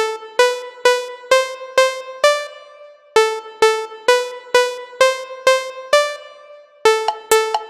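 Electronic dance track playing back from a music program: one short, percussive synth note repeats about twice a second in a simple riff that steps up in pitch now and then. It pauses briefly about three seconds in, and a quicker, busier pattern comes in near the end.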